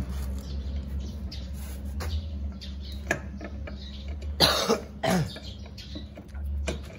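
Scattered clicks and knocks of a lug wrench working the wheel nuts on a steel-studded wheel hub, over a steady low hum. About four and a half seconds in, a person coughs loudly.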